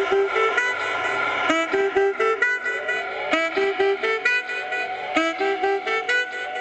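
Instrumental melody of quick pitched notes, the same short phrase starting over about every two seconds.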